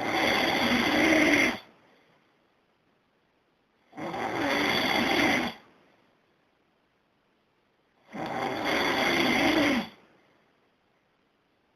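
A person snoring: three long, rasping snores about four seconds apart, each lasting under two seconds, with near silence between them.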